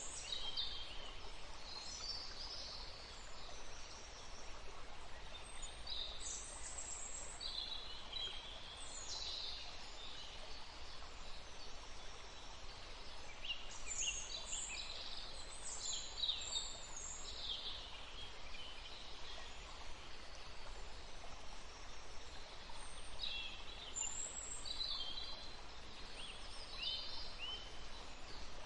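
A woodland stream running with a steady rush, while songbirds chirp in several short bursts over it.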